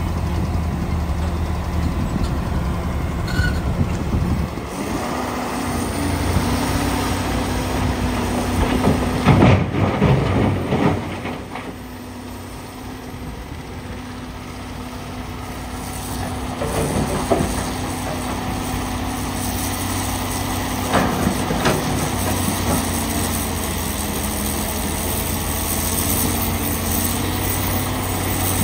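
Heavy diesel engines of a Komatsu PC450LC excavator and a mining dump truck running steadily. A load of broken rock crashes into the dump truck's steel bed about nine to eleven seconds in, and smaller rock clatters follow twice later on.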